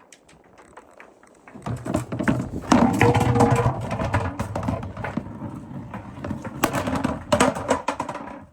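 Marbles rolling and clattering down a wooden marble run: a few light clicks at first, then from about a second and a half in a dense rolling rumble full of clicks. It stops abruptly near the end.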